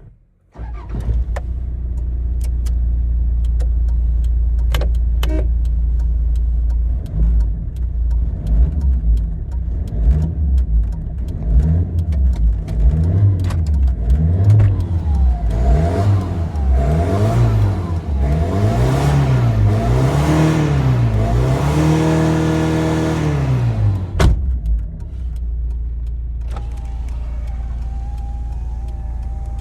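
Toyota Land Cruiser Prado LJ78's 2.4-litre turbo diesel starting and idling, then blipped about a dozen times in a row, each rev rising and falling, the later ones higher, before it drops back to a steady idle.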